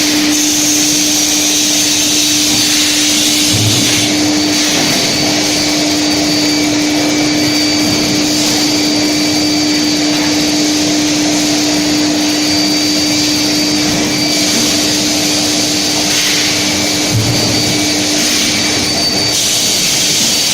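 Bar induction heating furnace running: a loud, steady industrial hum with a constant low tone and a high-pitched whine that cuts in and out, plus a few short low thumps.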